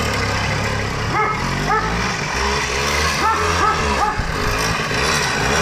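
Small two-stroke moped engine running and revving a little as it is ridden around, with a few short yelps over it.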